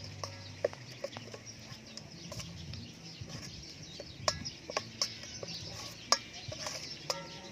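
Metal spoon clinking and scraping against a stainless steel bowl as wet chopped pandan leaves are stirred and pressed in water, in sharp irregular clicks. Hens cluck briefly at the start and again near the end.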